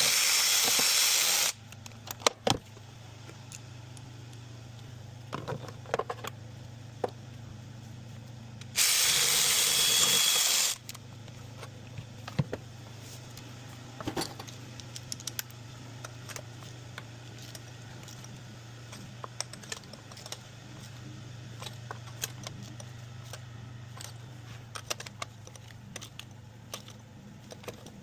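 Two loud bursts of a power tool, each about two seconds long, one at the very start and one about nine seconds in. Light metallic clicks of hand tools and parts are scattered between them, over a steady low hum.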